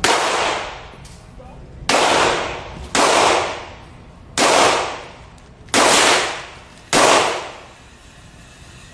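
Six single gunshots fired one at a time, irregularly spaced about one to one and a half seconds apart. Each has a short echoing tail.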